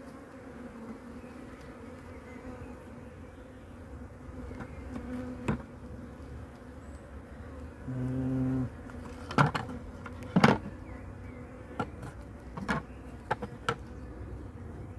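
Honeybees buzzing around an open hive, a steady hum with a louder buzz close by for under a second about eight seconds in. Several sharp knocks and clicks cut through, the two loudest a second apart about halfway through.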